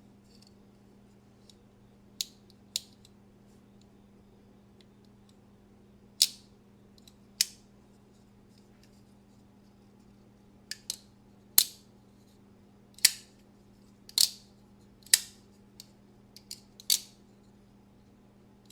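Demko AD-20.5 folding knife with a magnet modification being flicked open and snapped shut repeatedly, making about a dozen sharp metallic snaps at uneven spacing, some in quick pairs.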